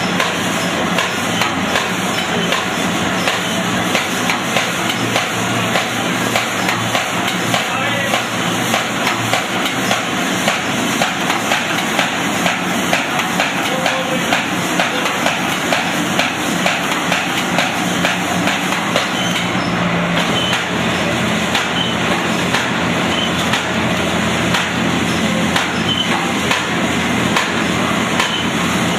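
Automatic paper bag making machine running, a continuous fast clatter of mechanical knocks from its moving parts.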